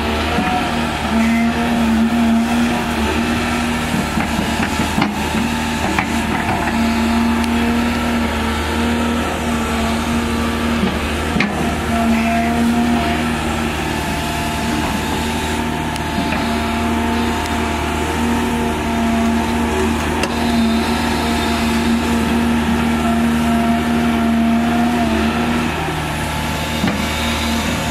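Caterpillar 320 excavator's diesel engine running steadily under load as it swings and dumps buckets of soil into a dump truck, with a few faint knocks.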